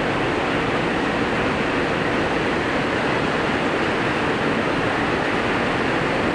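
Heavy rain pouring onto a pond's surface: a steady, even hiss.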